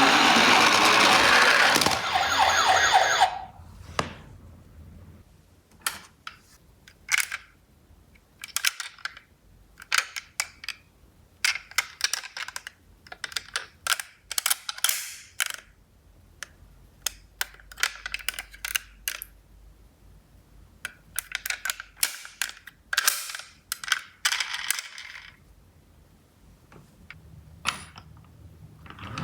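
A loud, dense sound cuts off about three seconds in. Then come scattered sharp clicks and short clattering runs of small die-cast toy cars being handled and knocked together.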